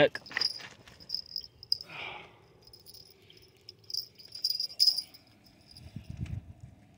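Insects chirping with a high, pulsing note, over scattered clicks and knocks from handling fishing tackle and a small sturgeon on shoreline rocks. Two sharper clicks come a little before the five-second mark.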